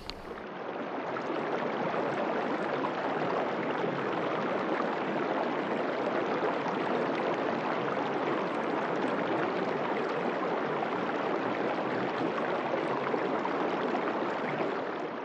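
Steady rushing water ambience, fading in over the first couple of seconds and fading out near the end.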